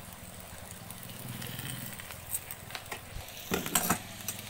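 Eggs sizzling as they fry in a nonstick pan, with metal tongs and a spatula clicking against the pan a few times. The loudest is a pair of clacks about three and a half seconds in.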